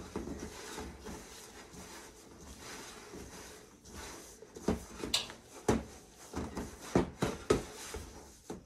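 Gloved hands kneading sticky bubble dough in a stainless steel bowl: soft squishing and rubbing, then from about halfway a series of short, sharp knocks as the hands and bowl bump against the metal.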